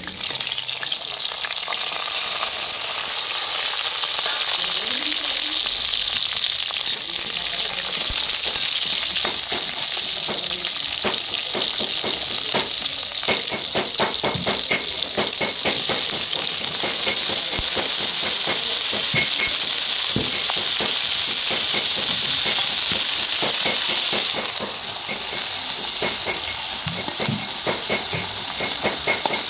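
Onion, tomato and green chilli sizzling in hot oil in a steel kadai, starting suddenly as the onion goes in. Through the middle there is a dense crackle of spattering, with stirring. The sizzle quietens a little near the end.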